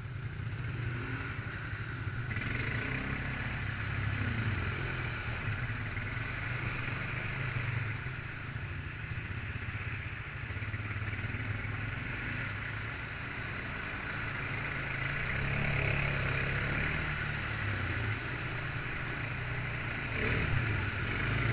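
ATV engine running under way along a muddy trail, rising and easing a few times with the throttle.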